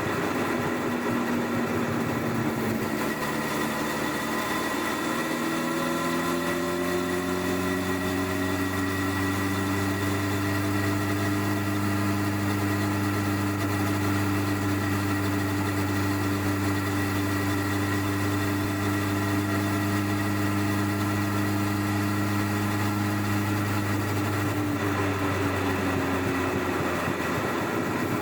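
Stock-exhaust 1999 Honda CBR1100XX Blackbird inline-four engine under way. It pulls smoothly up in revs over the first several seconds, holds a steady cruise, then eases off near the end. Heard from under the rear seat.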